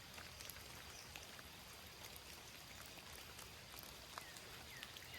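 Faint, steady patter of light rain with scattered drips. A few short falling chirps come in near the end.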